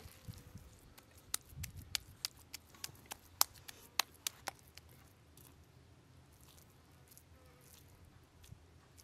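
Ground chicken kebab mixture being patted and squeezed into a ball by hand: a quick run of about a dozen sharp pats, three or four a second, for around three seconds, then soft squishing.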